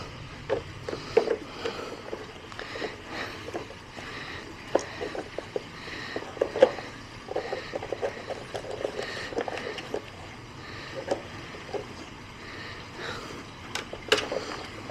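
A dog rummaging through a treat puzzle box: irregular knocks, clatter and scraping as it noses and paws at the box's parts, with a few sharper clicks.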